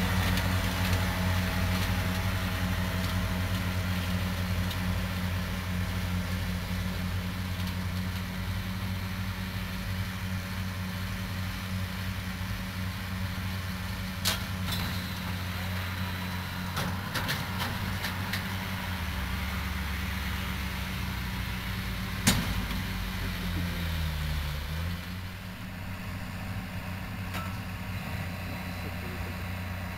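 Case IH tractor's diesel engine running steadily as it pulls a Claas Variant 350 round baler, the drone slowly growing fainter as it moves away. A sharp click about halfway through and a louder one a little later, and the engine note sags briefly and recovers about three-quarters of the way in.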